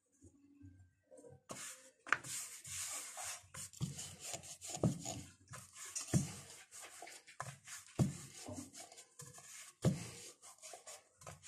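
Ridged wooden rolling pin rolling luchi dough on a round wooden board: the pin rubs and scrapes over the floured dough, with a dull knock every second or two. It starts after a brief pause about a second and a half in.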